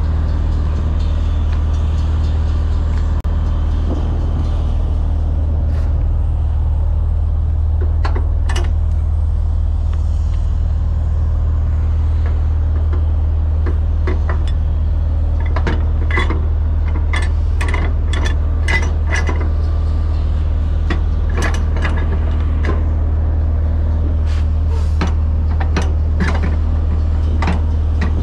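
Diesel truck engine idling with a steady low hum, while a cargo strap is worked at the flatbed's side rail, with bursts of sharp metallic clicks in the second half.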